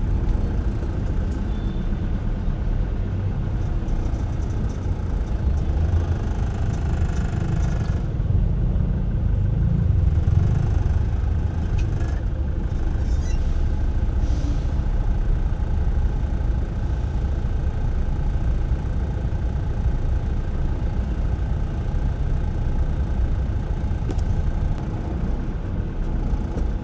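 Steady low rumble of a car on the move, heard from inside the cabin: engine and tyre noise while driving.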